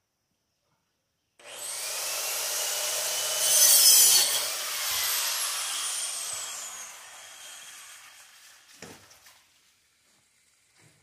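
Angle grinder switched on and cutting a pipe, loud and steady, then switched off, its whine falling as the disc spins down. A short knock near the end.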